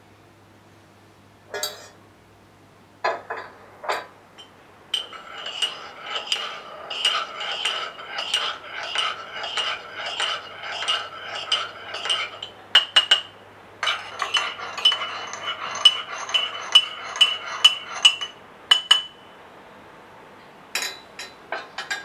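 A teaspoon stirring tea in a ceramic mug, clinking against the sides about twice a second, with a short break about halfway. A few single clinks come before the stirring starts.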